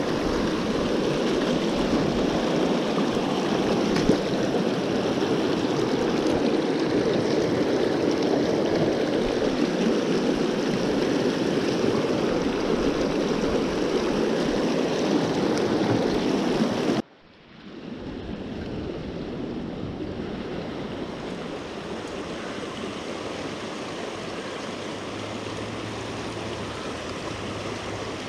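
Fast mountain creek running over rocks in a steady rush. About seventeen seconds in it cuts off abruptly, then returns quieter.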